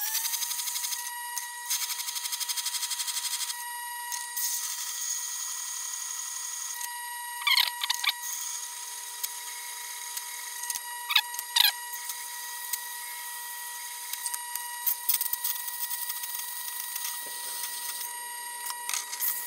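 Tormek sharpening machine's motor running with a steady high whine. A tungsten carbide fly cutter is held to the turning wheel, grinding its top face, and rasps against the wheel in short strokes a few times.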